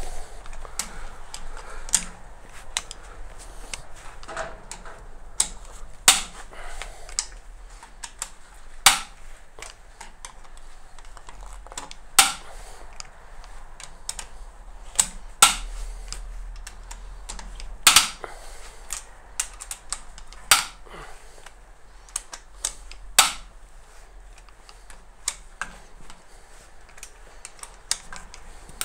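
Cylinder head bolts of a DW12 2.2 HDi diesel engine being broken loose one after another with a long bar: a sharp crack every two to three seconds, about nine in all, with lighter clicks in between.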